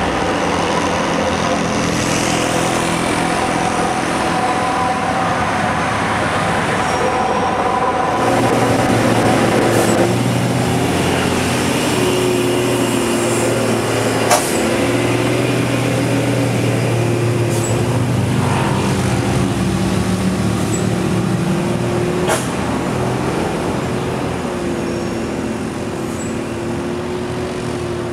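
Heavy trucks' diesel engines running steadily, with motorcycles passing close by partway through. A few sharp clicks cut through the engine noise.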